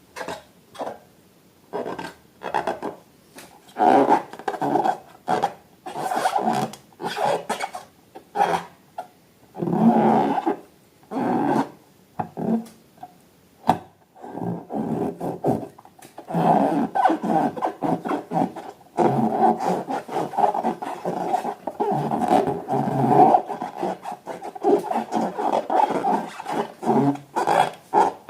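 Rubber balloons rubbed and squeezed by hand, in a long run of short squeaky rubbing strokes that crowd closer together in the second half.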